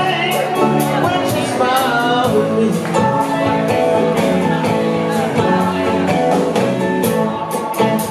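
A live band playing a blues-rock song: a Stratocaster-style electric guitar over a steady drum beat, with other instruments filling in.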